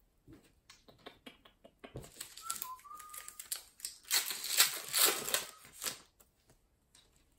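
Light clicks and rustles, then the plastic wrapper of a trading-card pack crinkling loudly as it is torn open by hand, loudest for about two seconds near the end.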